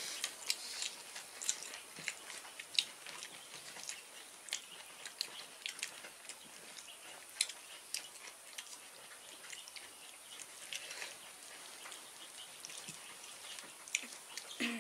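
Eating by hand: irregular small clicks and smacks of chewing, and of fingers mixing rice and curry on banana leaves.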